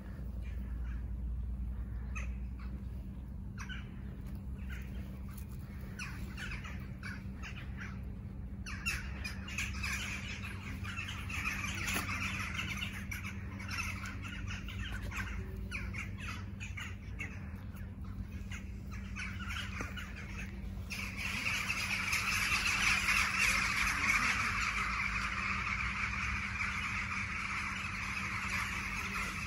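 A large flock of crows cawing together in a continuous din. It thickens about nine seconds in and is loudest from about twenty-one seconds in.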